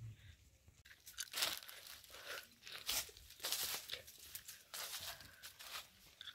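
Light, irregular crunching and rustling of footsteps through dry leaves and brush, starting about a second in.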